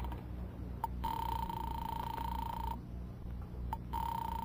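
Telephone ringing tone heard through the receiver on an outgoing call, played as a radio-drama sound effect. It is a steady buzzy tone that rings twice, each ring preceded by a faint click: the first starts about a second in and lasts under two seconds, and the second begins near the end and runs on.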